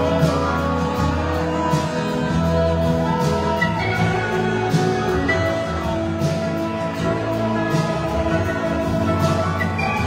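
Live band music over a loud concert PA: an electric slide guitar plays sustained notes that glide in pitch, over steady bass and light drums.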